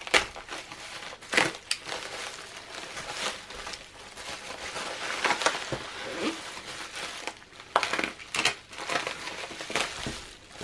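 Plastic bubble wrap crinkling and crackling in irregular bursts as hands slit it open and pull it back off a paper pad.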